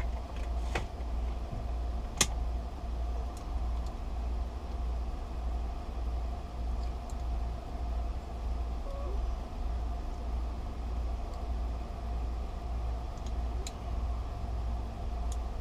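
Steady low background hum, with a few small sharp clicks as the keeper is pried off the back of a lever-handle lock cylinder by pushing up its tabs; the sharpest click comes about two seconds in.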